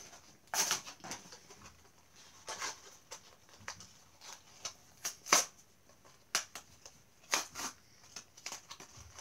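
Clear plastic blister packaging of a Hot Wheels car crackling and clicking in irregular sharp crinkles as hands work at prying it open. The pack is stiff and hard to open.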